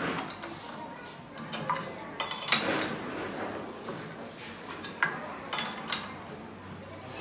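Metal clinks and scrapes as a gear shaft is clamped in a four-jaw lathe chuck, the jaws turned tight with a chuck key, with a louder clank about two and a half seconds in.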